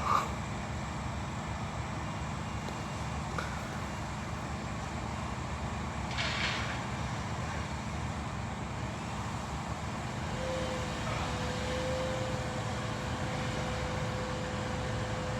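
Heavy delivery lorry's diesel engine running with a steady low rumble, a short hiss about six seconds in and a steady whine joining about ten seconds in.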